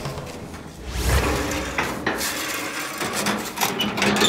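A gate's metal latch and drop bolt being worked shut: a run of sharp clanks, knocks and rattles.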